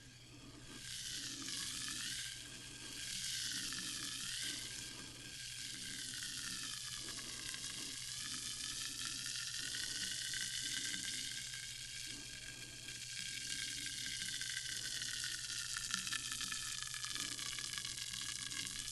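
Sparkling water fizzing: a steady crackling hiss of carbonation bubbles bursting, with a faint click about three-quarters of the way through.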